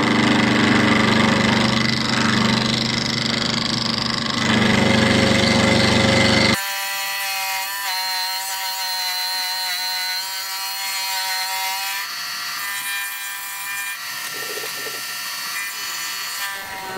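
Milling machine end mill taking a heavy side cut along the edge of steel plate, a loud harsh cutting noise. About six and a half seconds in it drops abruptly to a quieter steady whine with several held tones.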